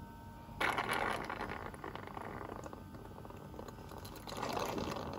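Stingless-bee honey being sucked up through a thin plastic tube from opened honey pots: a crackly slurping of honey and air that starts suddenly about half a second in and fades, then comes again near the end.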